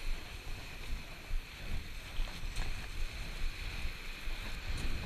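Wind buffeting the microphone in an uneven low rumble over a steady hiss of cross-country skis gliding downhill on groomed snow.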